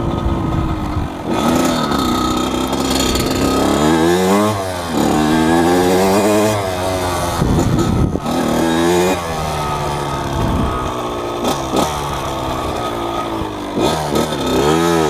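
1998 Kawasaki KX80's two-stroke single-cylinder engine revving as the dirt bike is ridden, its pitch climbing and dropping several times with the throttle and gear changes.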